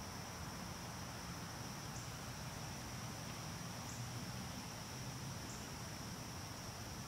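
A steady high-pitched insect trill with a slight lift every second or two, over a faint low background rumble.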